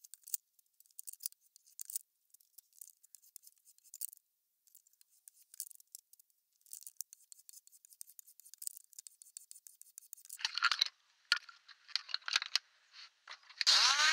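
Small hand plane taking light, repeated strokes along a beech board, each pass a short shaving hiss, with a denser, louder run of strokes in the last few seconds. Near the end an electric random-orbit sander starts up with a rising whine.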